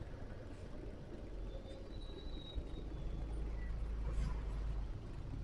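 Low steady rumble of a trailer truck running, growing louder for a couple of seconds past the middle, with a faint high chirp about two seconds in.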